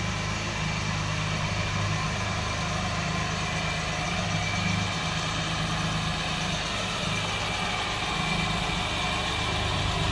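1973 BMW 3.0 CS's straight-six engine idling steadily.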